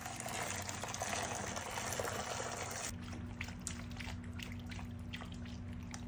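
Water poured from a jug into a dog bowl for about three seconds, then a dog lapping water from the bowl in a run of short wet strokes. A steady low hum runs underneath.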